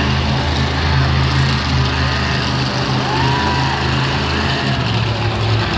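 Monster truck engines, including Grave Digger's supercharged V8, running with a steady deep rumble.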